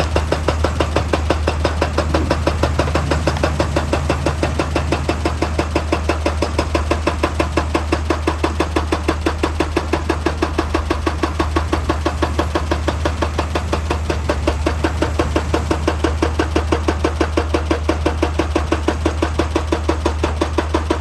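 Excavator-mounted hydraulic breaker hammer pounding rock in a fast, even rhythm of sharp strikes, over the steady low hum of the diesel engine.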